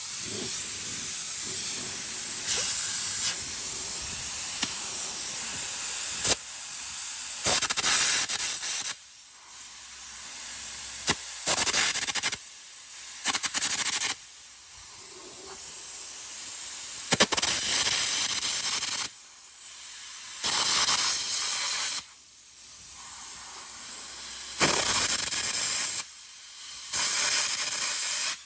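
A high-pressure cleaning jet hissing in blasts that start and stop sharply, each one to two seconds long, after a steady stretch of about six seconds, as dirt is blasted off a heavy steel frame.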